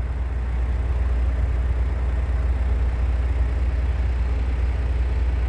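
Diesel engine of a semi truck with a 10-speed transmission running steadily, heard from inside the cab as an even low drone.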